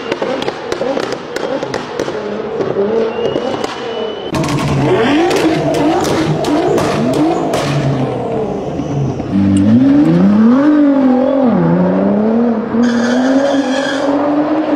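Nissan GT-R R35 twin-turbo V6 engines revving and accelerating in several short clips, the engine note climbing in pitch and dropping at each gear change, louder about halfway through. Sharp pops and crackles come through early, with crowd voices.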